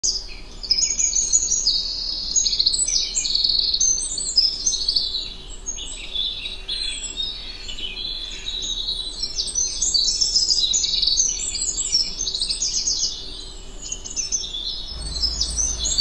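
A dense chorus of many birds chirping at once: short, high-pitched calls overlapping without a break.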